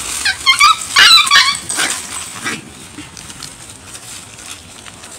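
A dog yelping and whimpering: a quick string of short, high-pitched yelps, loudest about a second in, that dies away after two or three seconds.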